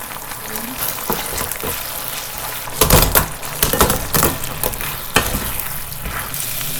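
Steady crackling sizzle of food frying, with a run of sharp knocks and clatters from about three to five seconds in, loudest about three seconds in.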